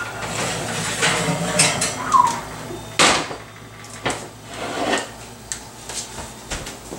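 Metal clanks and scrapes as an oven rack is pulled out and a cast-iron skillet is lifted from it and set on the stovetop, with a sharp knock about three seconds in and another a second later.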